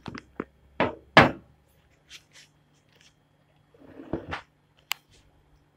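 A few short knocks and rustles, the loudest about a second in and another cluster near four seconds, over a faint steady low hum: handling noise as a phone camera is moved in close to the bowl.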